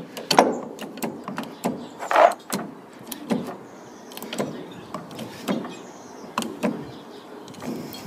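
Hand-pumped 25-ton hydraulic crimping tool being worked stroke by stroke, clicking and creaking about once a second as its jaws squeeze a fitting onto wire rope: the second crimp of a double crimp.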